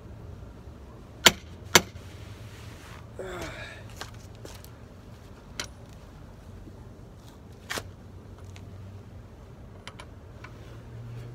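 Breaker bar and socket on the seized brake caliper bracket bolts of a car's front brake: sharp metallic clanks, two loud ones about half a second apart a little over a second in, then single knocks about five and a half and eight seconds in.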